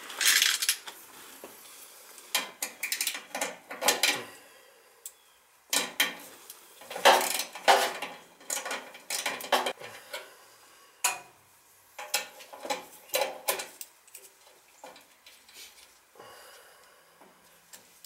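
Irregular metallic clicks and rattles of hands working meter test leads and wire connectors inside a furnace's sheet-metal cabinet, at the blower motor's run capacitor, which is suspected to be bad. They come in bunches, busiest from about six to ten seconds in.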